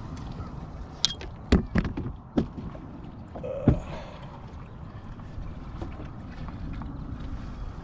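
Hands, a fishing rod and a small largemouth bass knocking against a plastic fishing kayak: several sharp knocks and taps between about one and four seconds in, over a steady low rush of wind and water.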